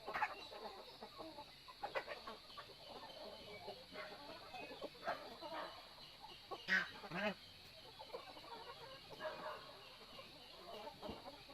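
Chickens clucking in short, scattered calls from a flock of farm poultry, one louder call about two-thirds of the way through, over a steady high-pitched buzz.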